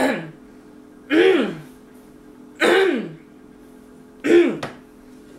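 A woman gagging four times, short retching 'bleh' sounds about a second and a half apart, each dropping in pitch, at the smell of sweaty feet held to her nose.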